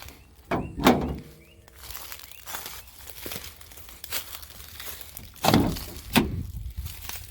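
A few scattered dull knocks and thunks, the loudest about a second in and two more near the end, with quiet stretches between.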